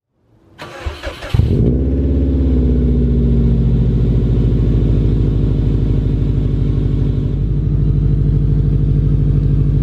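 Subaru WRX's turbocharged flat-four cranked over by the starter for about a second. It catches suddenly, flares, then settles down into a steady idle.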